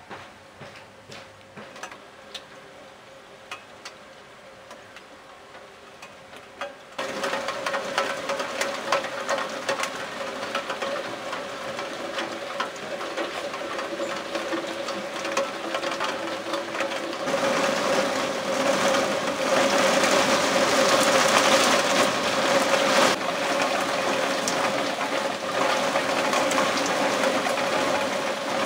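Heavy rain pouring down, a dense rapid patter of drops ticking on hard surfaces. It starts lighter and becomes much louder and denser about seven seconds in, heaviest a little past the middle.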